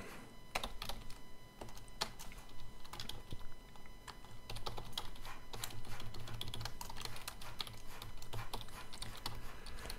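Typing on a computer keyboard: an irregular run of key clicks, some in quick clusters.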